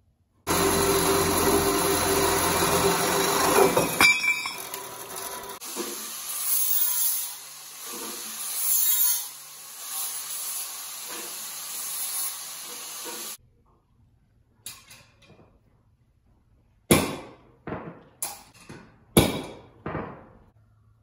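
A metal-cutting band saw, then an electric angle grinder, run loud and continuous on steel stock, with the grinding rising and falling in swells. The noise stops abruptly about two thirds of the way through. Several sharp metal knocks and clanks follow near the end.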